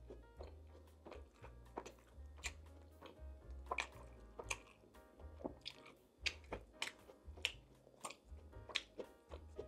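Close-miked chewing and biting, with frequent wet mouth clicks and smacks, over soft background music with a low bass line.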